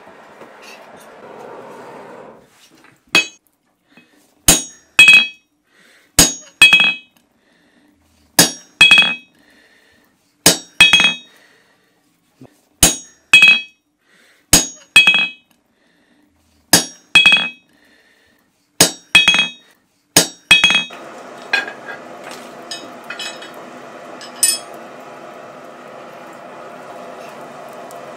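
Blacksmith's hammer striking a hand-held punch on a hot horseshoe on the anvil: ringing blows, mostly in pairs, one pair every one and a half to two seconds. It stops about three quarters of the way through, where a steady rush of air from the forge bellows takes over with a few light clinks.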